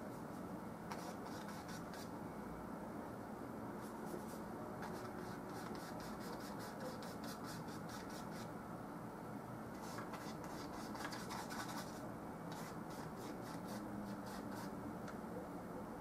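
Paintbrush working oil paint on a canvas, in groups of quick short strokes with pauses between, over a steady low hum.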